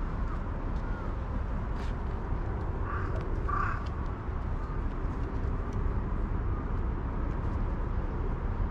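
Steady low rumble of wind on the microphone outdoors, with two short animal calls about three seconds in and a few faint bird chirps.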